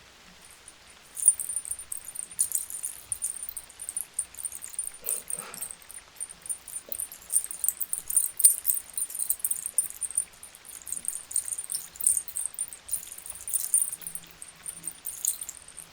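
A rapid, high crackling rustle made by hand close to the ear as a hearing test stimulus. It starts about a second in and runs on without a break.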